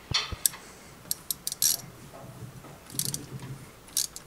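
Hand ratchet clicking in short runs of quick clicks, with pauses between, as it turns a thread tap cutting threads into a coolant fitting.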